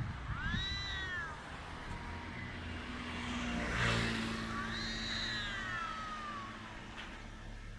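Domestic cat yowling its drawn-out mating-season courtship call: two long wavering cries, each rising and then falling in pitch, one about half a second in and another around the middle. A car passes about four seconds in.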